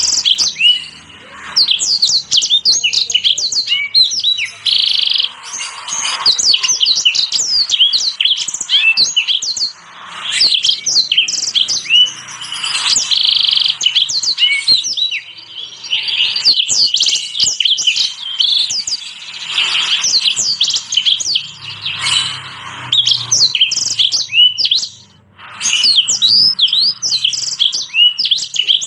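Small finches singing a fast, continuous string of high chirps, trills and buzzy notes, with only brief pauses: a masteran song-training recording that combines Mozambique canary, black-throated canary, sanger and red siskin song.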